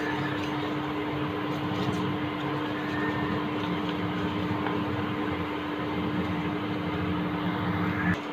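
A halved onion rubbed over an oiled non-stick dosa pan, making a steady low rubbing, hissing noise that stops just before the end, over a constant background hum.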